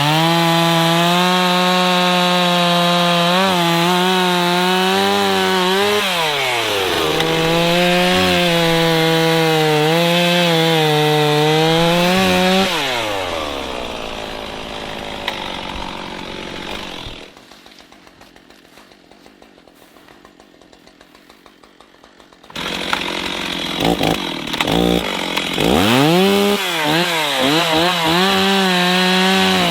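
Two-stroke gas chainsaw cutting wood at high revs, its engine note dipping and recovering as the chain loads up in the cut. About halfway through, the revs fall away and it goes much quieter for several seconds. Then the saw is loud again, revving up and cutting.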